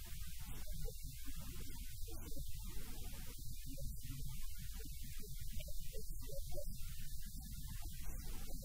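Steady low electrical mains hum on the audio track.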